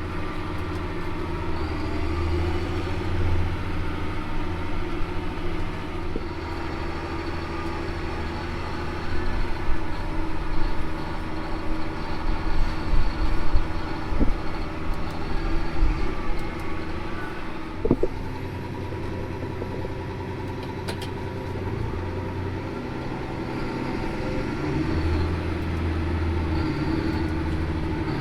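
Tractor engine running steadily, with a stretch of uneven louder jolts and rattles in the middle and one sharp knock near the end of that stretch.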